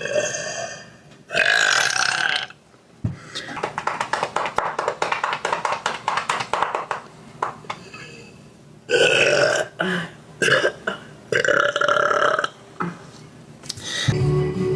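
A woman burping very loudly several times: once early, then three or four in quick succession in the second half. Between them comes a long run of quieter rapid clicking.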